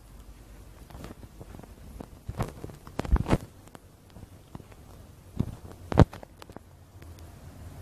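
Scattered sharp knocks and clicks over a faint low hum, the loudest a pair just after three seconds in and one at six seconds.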